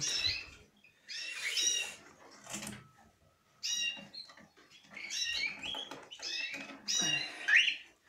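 Cockatiels calling: a series of short, high, squeaky chirps, some raspy, coming every second or so.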